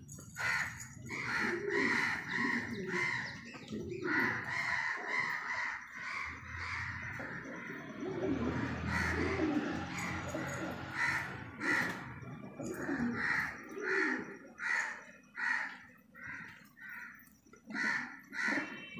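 Fancy pigeons cooing, low and wavering, with a higher-pitched bird call repeated about once or twice a second in the second half.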